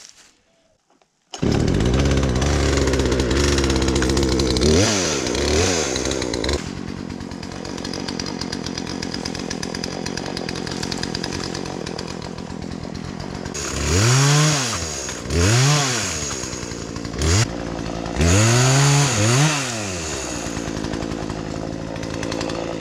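A two-stroke chainsaw comes in abruptly after a second and a half of near silence and runs at idle. Its throttle is blipped up and back down in short revs, a couple of small ones early and a run of louder ones in the second half.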